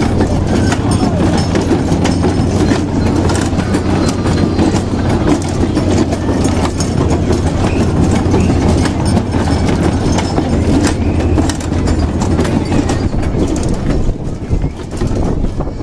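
A children's fire-engine carousel ride running as it turns: a steady low hum with frequent clicks from the ride's mechanism. It gets a little quieter near the end.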